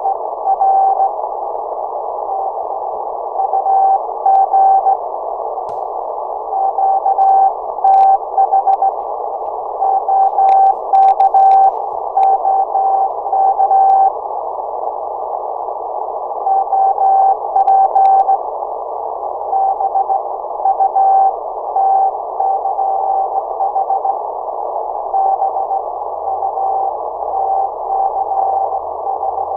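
Morse code (CW) from an Icom ham radio transceiver: a single mid-pitched tone keyed on and off in groups of dots and dashes, with pauses between groups, over steady receiver hiss. There are a few clicks along the way.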